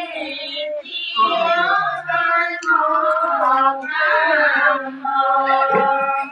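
Women singing a devotional naam chant together, unaccompanied, in long held notes that glide between pitches.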